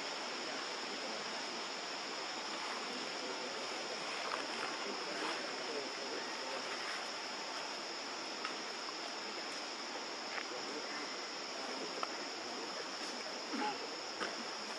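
Steady forest ambience: a continuous high insect drone over a constant hiss, with a few faint brief sounds scattered through it.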